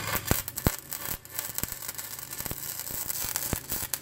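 Flux-core (gasless) wire-feed welding arc crackling and spitting steadily, with irregular sharp pops, from a YesWelder 205DS on 110 V set at wire speed 108 and 16.9 volts, laying a weave bead.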